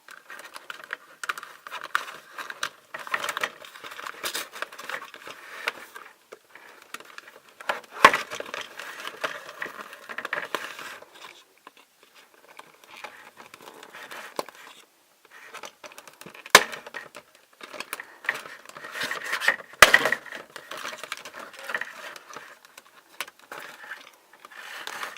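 Hands working a Barbie doll loose from its plastic toy packaging: irregular crinkling and rustling, with three sharp clicks along the way.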